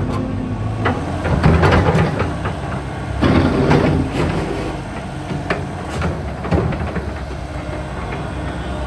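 Volvo EC160DL excavator working: its diesel engine running steadily under hydraulic load, with scattered metallic knocks and clanks. It gets louder about a second and a half in and again for a moment around three and a half seconds.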